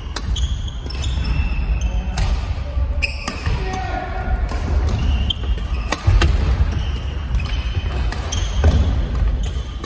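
Badminton rally: several sharp cracks of rackets striking the shuttlecock, mixed with shoe squeaks and footsteps on a wooden court floor.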